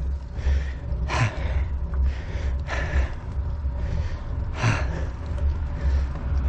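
A cyclist breathing hard while pedalling up a steep 12% hill, with three loud gasping breaths about two seconds apart. A steady low rumble runs underneath.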